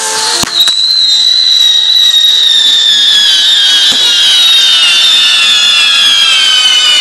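Spinning firework wheels whistling as they throw sparks: a loud, high whistle that begins about half a second in and slowly falls in pitch, over a hiss of burning sparks. There are a couple of sharp pops near the start and another about four seconds in.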